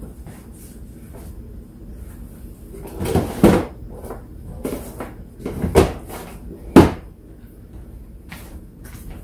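Lower kitchen cabinets being opened and shut while towels are put away: a few sharp knocks, the loudest about three and a half, six and seven seconds in.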